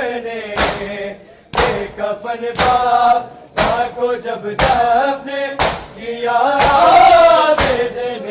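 A group of men chanting a noha (Urdu lament) in unison, with sharp unison chest-beating (matam) striking about once a second.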